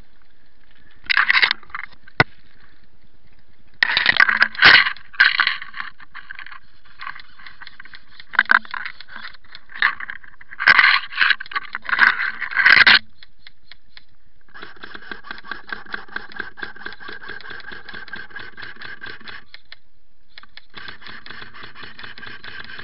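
Rustling and scraping of brush and clothing close to the microphone during the first half, as a player crawls along a hedge. Then an airsoft electric rifle fires a long rapid burst lasting about five seconds, and another burst starts near the end.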